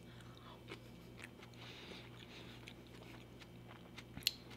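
Close-miked chewing of a mouthful of sushi roll: soft, faint mouth clicks and smacks, with one sharper click about four seconds in.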